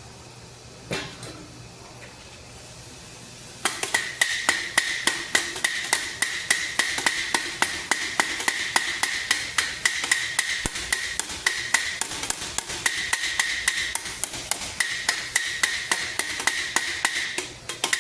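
Hammer peening a rivet on a steel great helm: a single knock, then a few seconds later a fast, even run of about four or five blows a second, each leaving a high ringing from the steel. The hammering breaks off briefly near the end.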